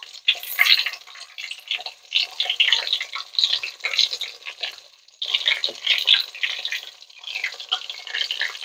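Breaded chicken pieces deep-frying in a pot of hot oil: a dense crackling sizzle that briefly drops away about five seconds in, then resumes.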